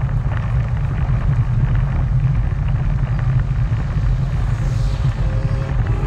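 Steady low rumble of riding noise from a moving velomobile, tyres on the road and wind together. Faint music comes in near the end.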